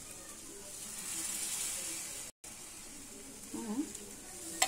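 Balamrutham dosa batter sizzling on a hot flat griddle, a steady faint hiss that drops out briefly midway, with a sharp ladle click against the pan near the end.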